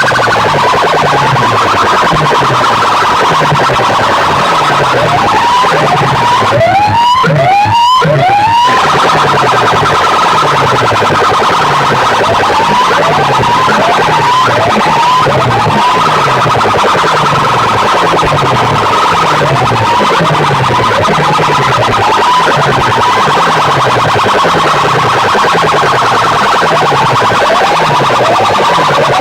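DJ sound-box system playing a competition track at full volume: siren-like rising whoops over a low bass sweep that repeats about once a second, with a quick flurry of whoops a few seconds in.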